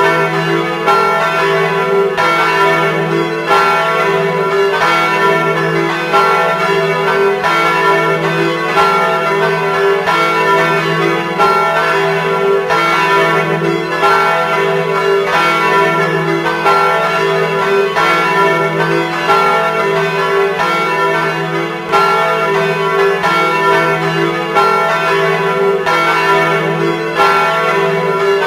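Church tower bells ringing in a continuous peal, strokes following one another about once a second and overlapping as they ring on.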